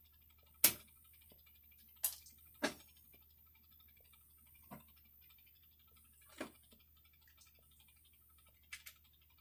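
Hand tools working copper electrical wire: a handful of sharp, irregularly spaced clicks and snaps as the switch's wires are trimmed and the tools are handled, the loudest about half a second in and two quick ones close together near the end.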